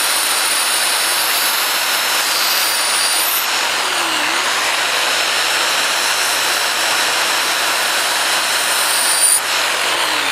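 Corded DeWalt drill running steadily while a knife blade is ground against the abrasive it spins: a continuous grinding hiss over the motor's whine. The pitch dips briefly about four seconds in.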